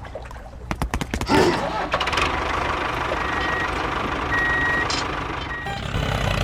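Vehicle reversing alarm sounding a few short beeps over a steady motor rumble, after a quick clatter of clicks and knocks about a second in.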